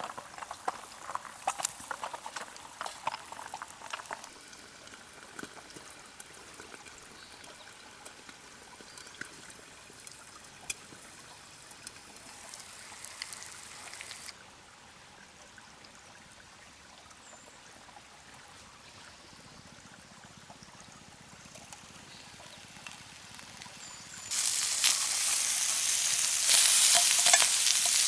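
Eggs frying in a steel pan, a crackling sizzle with many small pops, which fades to a fainter sizzle. Near the end, a much louder, steady sizzle starts as sausages and cherry tomatoes fry in the pan.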